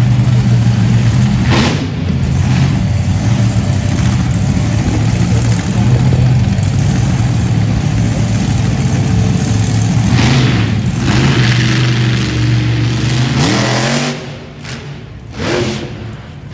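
Monster truck engine running at a loud idle with a few throttle surges, then revving up with a rising pitch about 13 seconds in before the sound drops off abruptly.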